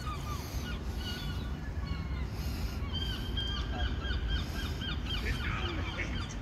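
Small songbirds chirping and singing, with many quick high calls and short trills, over a low background rumble.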